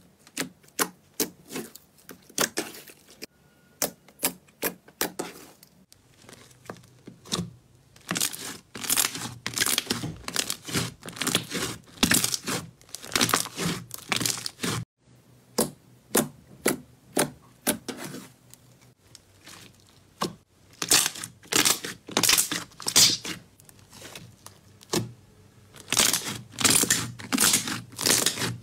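Slime being pressed, folded and squeezed by hand, making quick trains of sharp wet clicks and pops, several a second, in bursts with short quieter pauses.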